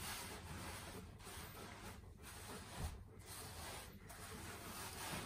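Hands rubbing and scrubbing a malamute's soaked coat: a soft, steady wet rubbing that eases off briefly about once a second.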